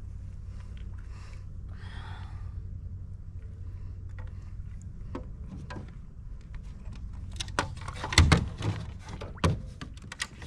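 A steady low rumble, then a quick run of knocks and thumps about seven and a half seconds in, the loudest a heavy thunk near eight seconds, as things are handled against a kayak.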